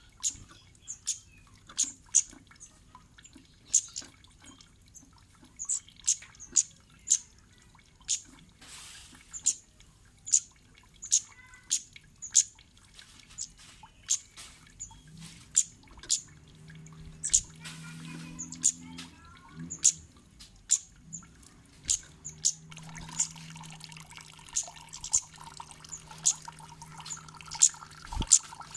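Cit kemade bird calling: short, sharp, very high chirps repeated about once or twice a second, on and off, as in a lure recording. A low steady hum joins underneath in the second half.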